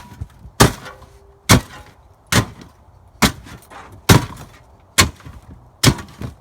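A laptop being smashed with repeated heavy blows: seven hard, sharp impacts in a steady rhythm, a little under one a second, with smaller cracking knocks between them.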